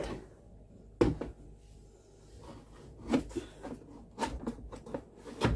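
Parts of a Thermomix being handled and set in place on the machine: a few separate knocks and clatters. A clear knock comes about a second in, more follow around three and four seconds, and a louder one comes at the very end.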